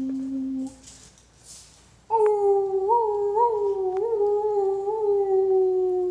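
A man imitating a dog's howl with a long, drawn-out 'ooo'. A lower held note ends under a second in. After a short breath, a higher howl starts about two seconds in, wavers up and down a few times and slowly sinks in pitch.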